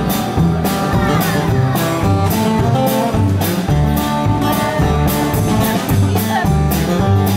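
Live country band playing an instrumental passage between sung verses: a walking bass line and a steady drum beat under guitar lines.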